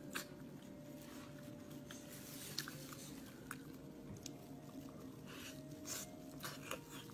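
Close-up eating sounds of a person biting and chewing soft, tender spiced pig's trotter: wet smacks and sticky clicks at irregular intervals over a faint steady hum.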